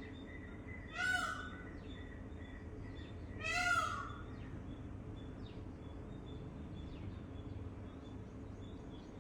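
Two loud, harsh bird calls about two and a half seconds apart, each rising then falling, the second longer. Behind them, faint short chirps and high steady notes from other birds.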